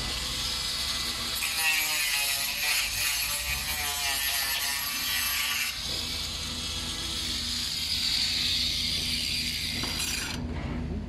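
Power tool cutting a fibre cement cladding board, a loud high hiss with a wavering pitch that stops abruptly near the end.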